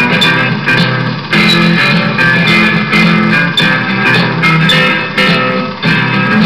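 Instrumental background music led by guitar, with bass and a steady beat.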